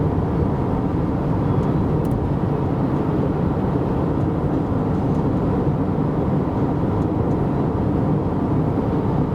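Freight train rumbling steadily past: diesel locomotive engines and steel wheels on the rails, with no horn sounding.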